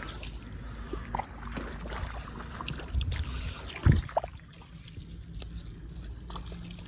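Hands sloshing and splashing in shallow muddy water while pushing Napier grass cuttings into the wet soil, with two louder splashes about three and four seconds in.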